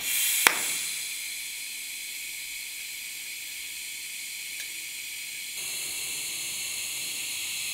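TIG welding arc burning with a long tungsten stickout: a steady high hiss, with a sharp click about half a second in. The hiss grows slightly louder and fuller about two-thirds of the way through.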